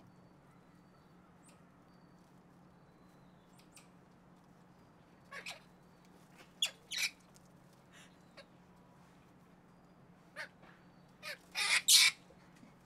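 Squirrel monkeys giving short, shrill calls: a pair about five seconds in, another about seven seconds in, and a louder quick run of them near the end, over a faint low hum.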